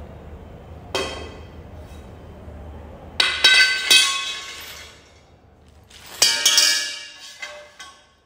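Metal tubes of a clothes stand clanking against the tiled floor and each other: one knock about a second in, then two bursts of ringing clangs, the loudest around three to four seconds and again around six to seven seconds in.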